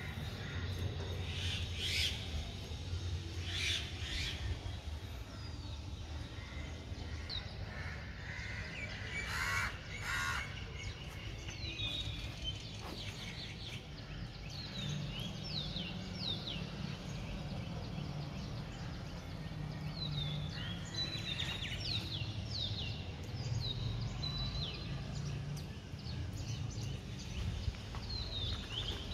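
Birds calling outdoors: a few loud, harsh calls in the first ten seconds, then many short, high chirps, over a steady low background rumble.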